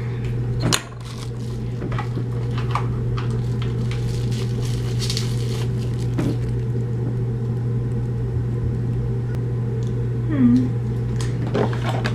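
Steady low hum, with scattered small clicks and crinkles from battery packaging being handled.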